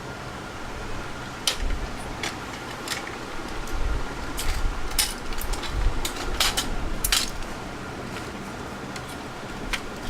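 A run of a dozen or so sharp clicks and light clatters, with a few dull low thumps, over a steady background hum; the clicking starts about a second and a half in and stops a little after seven seconds.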